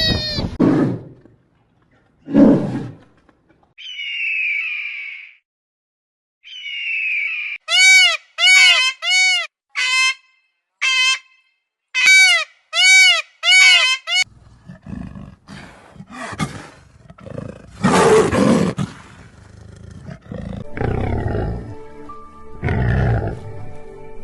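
A series of different wild animal sounds: two hisses, then a run of about nine short calls that rise and fall in pitch, then low, rough grunts and roars.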